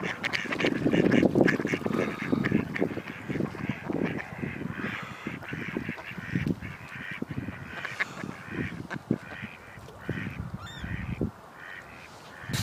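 A crowd of waterbirds calling over and over in short, overlapping honking and quacking calls while being fed. A louder low rumble sits under the calls for the first couple of seconds.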